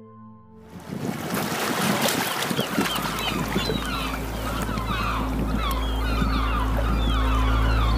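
A singing bowl's ring dies away in the first second; then small sea waves wash over shore rocks while many birds call in a busy chorus of short, rising-and-falling cries. From about three seconds in, a low steady drone swells underneath.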